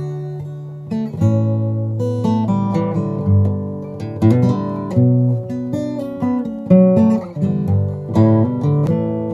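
Solo acoustic guitar playing a slow chord intro, its notes picked and strummed and left to ring.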